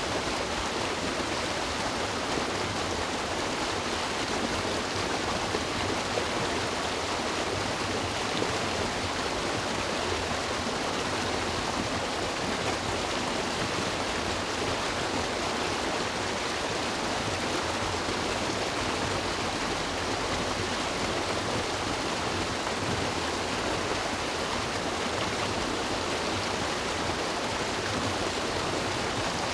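A river flowing over rocks: a steady, even rushing of water.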